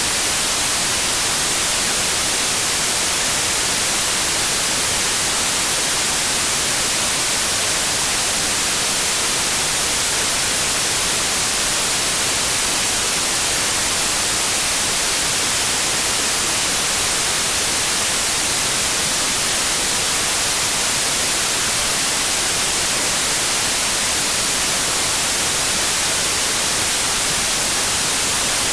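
Steady, unchanging electronic white noise: an even hiss, brightest in the treble.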